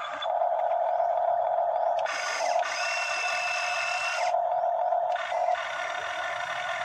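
Electric motor and gearing of a Hitachi EX60 RC scale model excavator whining steadily as its boom and arm move, with a higher-pitched whine joining for about two seconds in the middle.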